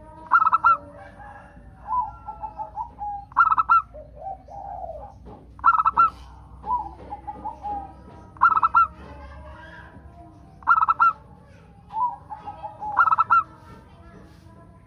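Zebra doves (perkutut) cooing: a loud call roughly every two and a half seconds, with softer rapid runs of notes in between.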